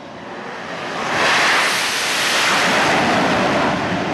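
F/A-18 jet engines at high power on a carrier flight deck: the roar builds over the first second, then holds as a steady, loud jet noise.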